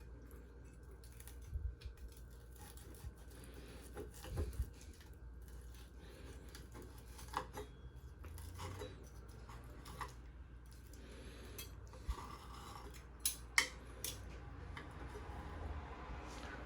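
Faint, scattered clicks and short scrapes of utensils against a dish as food is picked up to be tasted.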